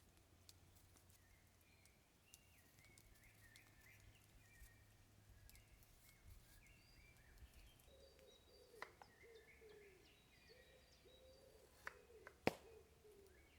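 Faint birdsong in the forest: small birds giving short, repeated chirps, with a few sharp clicks near the end.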